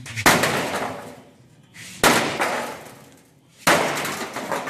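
Sledgehammer striking the rusted sheet-steel rear quarter panel of a 1968 Mustang Fastback three times, about a second and a half apart, each blow a loud metallic crash that rings and rattles away. It is the panel being knocked loose from the body.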